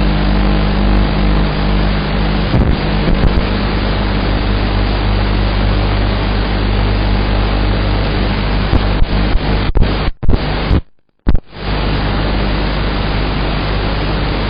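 Raw flight audio from a 7-inch FPV quadcopter: a loud, steady hiss over a low hum from the motors. A few crackling clicks come near the middle, and about eleven seconds in the sound briefly cuts out before the hiss returns.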